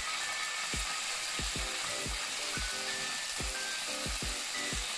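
Background music with a drum beat and short melody notes, over chicken satay skewers sizzling in a hot grill pan.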